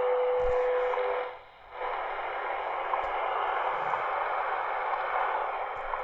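XHDATA D-220 pocket shortwave radio's speaker playing the WWV time-signal station on 10 MHz through static: a steady tone that stops about a second in, a brief dropout, then steady hiss.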